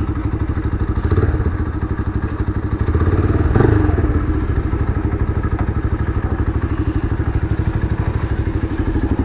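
Motorstar Z200X motorcycle engine running at low speed through its stock exhaust, a steady fast pulsing beat. A single thud about three and a half seconds in.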